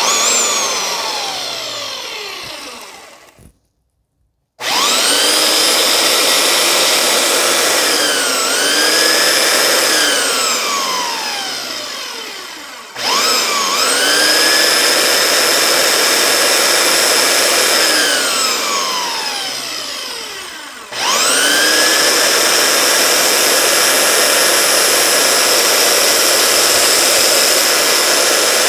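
Makita 9403 4x24-inch belt sander switched on and off several times: its motor and belt whine rising in pitch as it spins up, running steady, and falling away as it coasts down, with fresh starts about 4.5, 13 and 21 seconds in and a brief dip near 8.5 seconds. It runs fairly quietly, surprisingly so for this tool.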